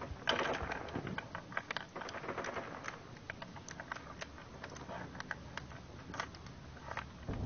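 Rifle cartridges clicking and rattling against a plastic Podavach magazine speed loader as it is worked by hand to load a rifle magazine: a run of irregular light clicks, busiest in the first second.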